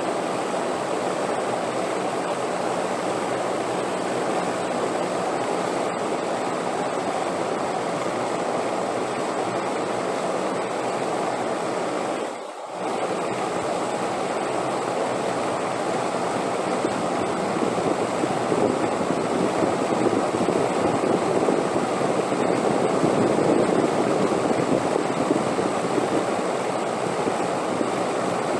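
Steady rushing wind. It dips briefly a little before halfway through, then swells louder through the second half.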